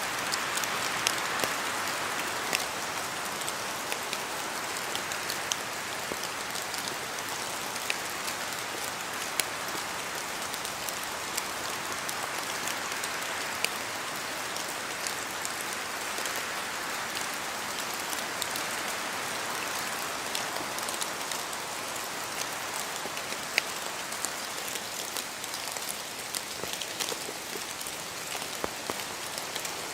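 Steady rain falling in a forest, a continuous hiss with many scattered sharp drips of drops falling from the trees. The hiss swells and eases gently a few times, as gusts of wind move through the trees.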